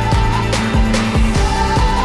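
Background music with a steady beat, bass and sustained tones.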